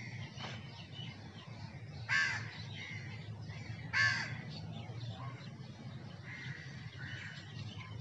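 A crow cawing twice, two harsh calls about two seconds apart, over a steady low background hum, with fainter bird calls later on.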